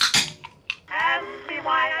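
Sharp clicks from a beer can being handled at the table: a loud click with a brief hiss at the start, and a smaller click a little later. About a second in, music starts: an old-time song with a man singing.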